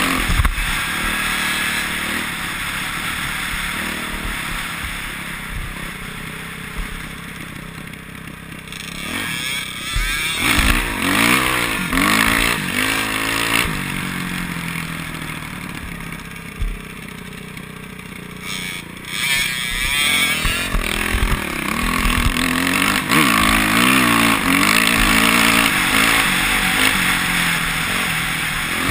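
Dirt bike engine heard from the rider's helmet, revving up and easing off as the bike runs along a rough trail, with a steady rush of wind on the microphone. The engine picks up hard about ten seconds in and again at about twenty seconds, quieter in between.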